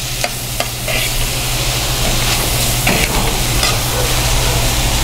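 Red cabbage sizzling in a little olive oil in an aluminium saucepan on a gas burner while a spoon stirs it, with a few light knocks of the spoon against the pot.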